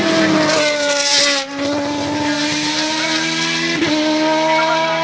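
Race-tuned Indy V8 engine of a BMW E30 hillclimb car running hard. Its note sinks slightly over the first second and a half and breaks briefly, then holds steady with another short break about four seconds in.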